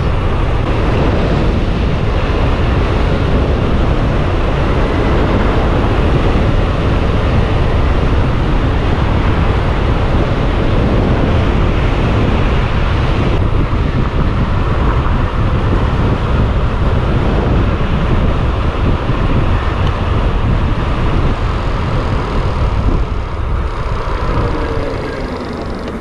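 Wind rushing over the camera microphone, with road and tyre noise, from an Onyx CTY2 electric bike riding at speed. It eases off near the end as the bike slows down.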